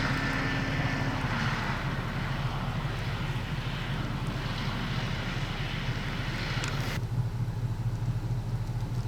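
A vehicle's engine runs steadily, with a low hum under a hiss of road noise. The hiss cuts off suddenly about seven seconds in, leaving only the low hum.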